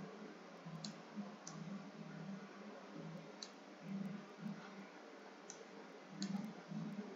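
Faint computer mouse clicks, about six spaced irregularly, as a shape is drawn and resized in a paint program.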